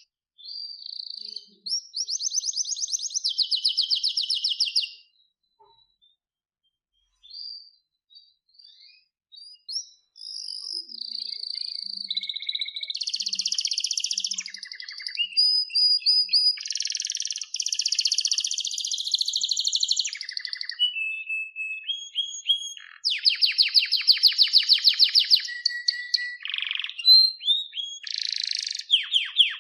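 Domestic canary singing. A fast trill runs for a few seconds, then a pause with a few short notes. From about ten seconds in comes a long unbroken song of rapid trills, rolls and whistled glides.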